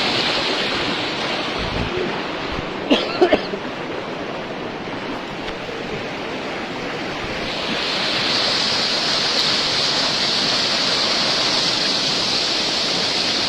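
Floodwater rushing in a steady, loud hiss, growing brighter from about halfway. A few brief sharp sounds stand out about three seconds in.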